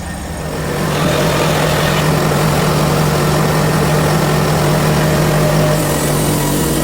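Portable bandsaw mill's engine running steadily, getting louder about a second in as the band blade goes into the hemlock log to cut a flitch.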